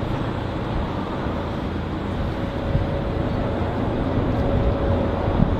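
Steady low rumble of distant harbour and road traffic, with a faint steady hum coming in about two seconds in.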